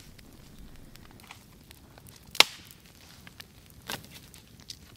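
Sharp, irregular cracks of wood among faint scattered ticks: the loudest comes about two and a half seconds in, with another about a second and a half later.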